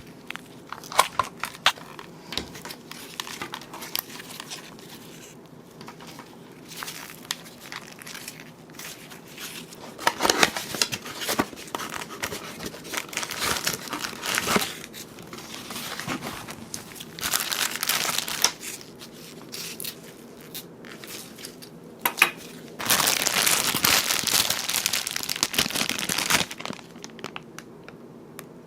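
Plastic packaging crinkling and rustling as it is handled by hand, in irregular bouts with small clicks between, the longest and loudest stretch near the end.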